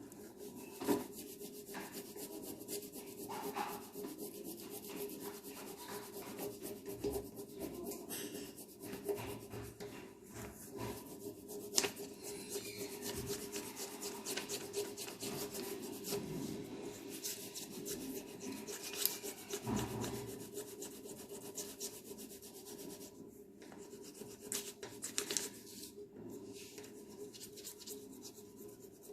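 Plastic crayon rubbing on paper in quick back-and-forth shading strokes, a continuous scratchy rasp with a few louder scrapes.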